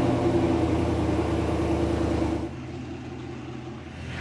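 Chevrolet Silverado Trail Boss pickup's engine running steadily. It drops to a quieter, lower level about two and a half seconds in.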